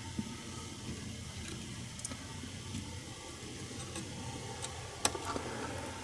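Faint scattered clicks and light taps of tools against a small circuit board while a five-pin component is being desoldered, with a sharper click about five seconds in, over a steady low hum.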